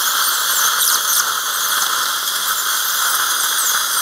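Dental surgical handpiece running with a bur as it sections a horizontally impacted lower wisdom tooth: a steady high hiss with repeated short, high squeaks.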